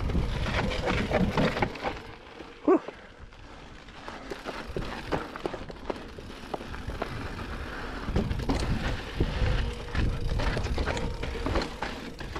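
Mountain bike ridden over a rocky trail: tyres crunching and the bike rattling and clicking over rocks and bumps, with low rumble behind. One short, sharp, loud sound stands out about three seconds in.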